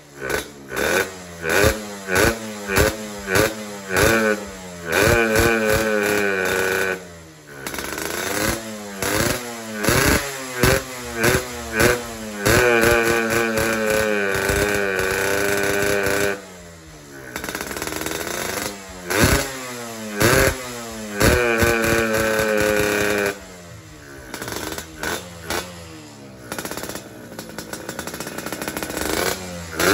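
Yamaha RX King two-stroke motorcycle engine, fitted with a PWK 33 carburettor, revving up and falling back in many quick blips, with a few longer stretches held at high revs.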